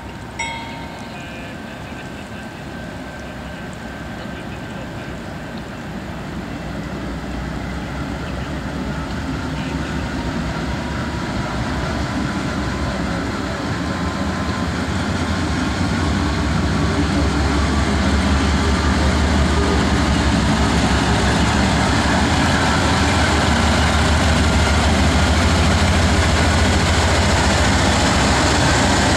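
Norfolk Southern diesel freight locomotive approaching, its engine rumble and rolling wheels growing steadily louder. The end of a horn blast sounds right at the start.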